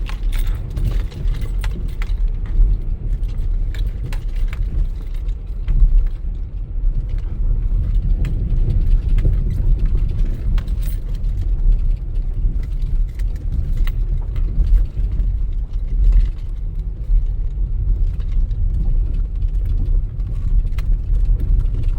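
A vehicle driving on a gravel logging road: a steady low rumble of engine and tyres, with frequent small clicks and rattles.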